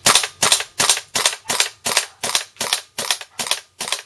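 A WE G39C gas blowback airsoft rifle fires a string of about eleven evenly spaced pops, roughly three a second. This is the repeated pop-pop-pop that the owner says shouldn't happen: the gun is not cycling properly.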